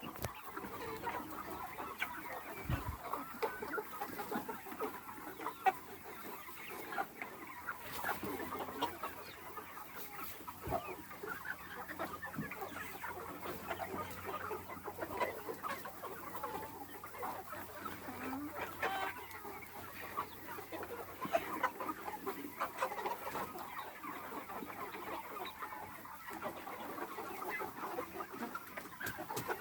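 A flock of Aseel cross chickens clucking, with many short overlapping calls throughout.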